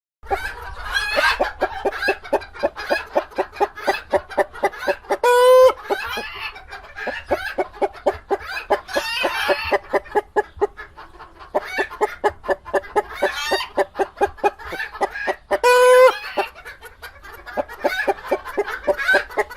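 Several hens in a chicken coop clucking continuously in quick, overlapping clucks, with two loud drawn-out squawks, one about a quarter of the way in and one about four-fifths in.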